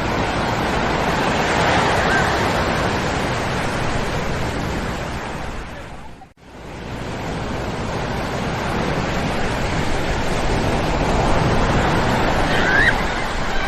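Ocean surf breaking and washing onto a sand beach: a steady wash of waves that swells and eases. It drops out abruptly for a moment about six seconds in. A child's faint voice is heard near the end.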